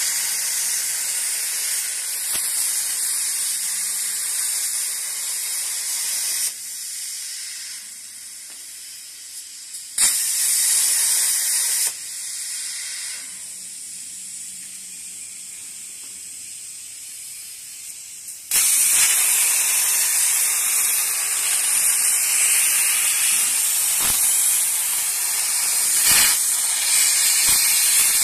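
CNC plasma cutter torch cutting steel plate: the plasma arc gives a loud, steady hiss that stops about six seconds in, fires again briefly around ten seconds, and starts again about two-thirds of the way through. A much quieter hiss fills the gaps between cuts.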